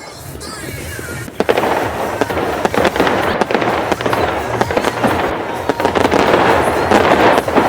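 Fireworks going off in quick succession: a dense run of bangs and crackling that starts about a second and a half in and grows louder toward the end.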